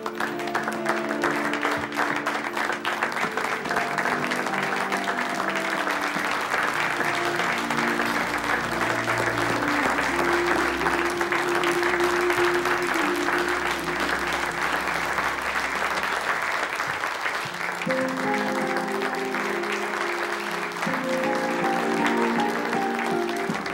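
A roomful of people clapping steadily, mixed with background music of held melodic notes.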